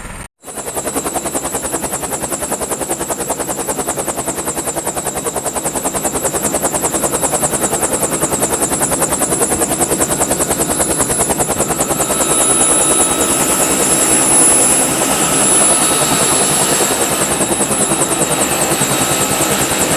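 Helicopter rotor chopping with a fast, steady beat, starting after a brief silent gap and growing gradually louder as it comes closer.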